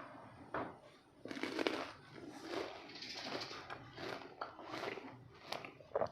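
A person biting into and chewing several young bilimbi fruits, with irregular crunching starting a little over a second in and a couple of sharper crunches near the end.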